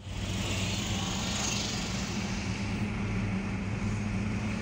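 Car engine and road noise heard from inside the cabin while driving: a steady low hum over an even rush of tyre and wind noise.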